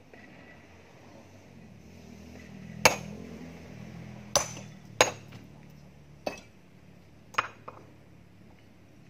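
Metal hand tool striking rock as stone is broken out by hand: six sharp, ringing clinks at uneven intervals, starting about three seconds in. A faint low drone runs underneath and fades out about two-thirds of the way through.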